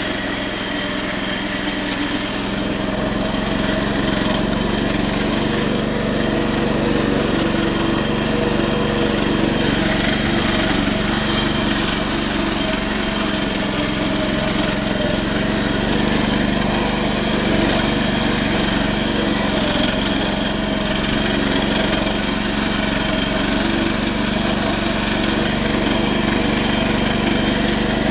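Mini-tractor's small engine running steadily as the tractor drives along.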